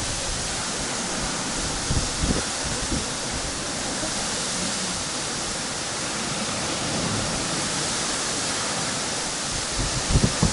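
Strong wind rushing steadily, with gusts buffeting the microphone about two seconds in and again near the end.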